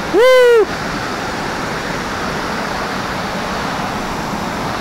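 Steady rushing of a small waterfall cascading over rocks. A person gives one short, loud shout near the start.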